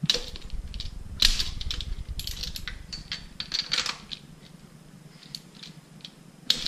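Socket ratchet clicking in short runs, with metal clinks, as spark plugs are loosened and backed out of the engine. The clicking thins out about two-thirds through, then comes back with a sharp click near the end.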